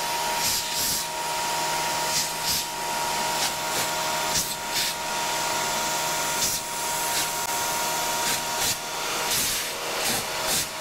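An end mill on a CNC Bridgeport mill cutting 1/16-inch aluminum sheet, giving a steady whine, with a handheld air blow gun hissing at the cut to clear chips. The high-pitched hiss swells and drops repeatedly.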